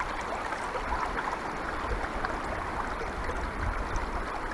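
Small rocky woodland stream trickling and babbling steadily under a log footbridge.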